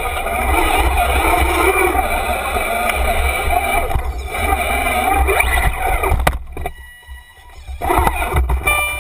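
An RC scale crawler's electric motor and gear drivetrain whining, heard from a camera mounted on the truck, rising and falling in pitch as the throttle changes over a steady low rumble. It goes much quieter for a second or so about six and a half seconds in, then picks up again near the end.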